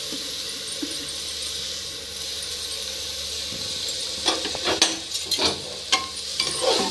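Washed rice sizzling in hot butter and cumin in an aluminium pressure cooker, a steady hiss. About four seconds in, a metal spoon starts scraping and knocking against the pot as the rice is stirred.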